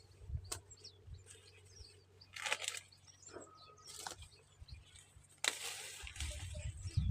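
Scattered rustling and crackling of dry plant material being handled, with faint bird chirps. A louder, longer rustle starts near the end.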